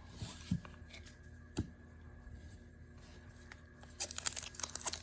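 A few soft taps of handled trading cards, then about four seconds in the crackly crinkling and tearing of a foil hockey card pack wrapper being opened.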